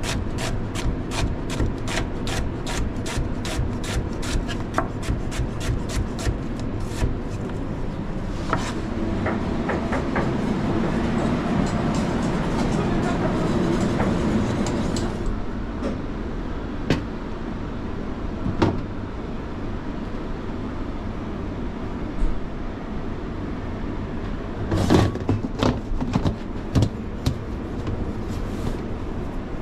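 Chef's knife slicing a red onion on a cutting board, an even run of chopping strokes about three a second for the first several seconds. Then a stretch of denser rustling and scraping as sliced onions and butter go into a steel pot, followed by a few scattered knocks and clatters of kitchen pots and containers.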